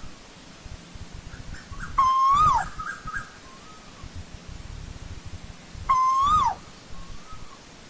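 Asian koel calling twice, about four seconds apart: each call is a clear note held briefly, rising a little and then dropping, with fainter soft notes after it.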